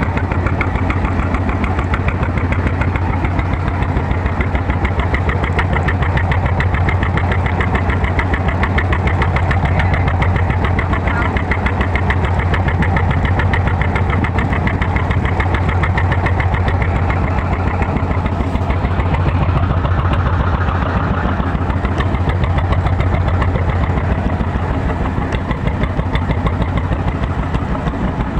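Small boat's engine running steadily with a rapid, even pulsing beat and a strong low hum.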